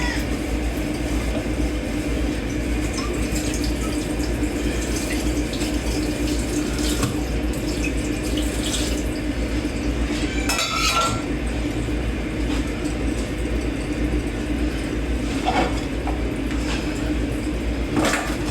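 Hand-washing dishes in a kitchen sink: tap water running steadily while dishes and cutlery clink against each other now and then.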